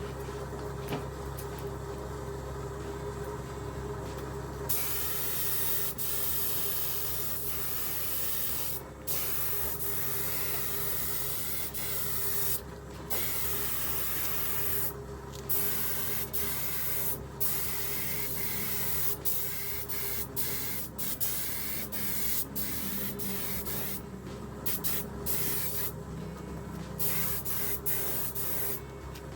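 Air spray gun hissing as two-part high-build primer is sprayed. The hiss starts about five seconds in and then stops and starts many times with the trigger, over a steady low hum.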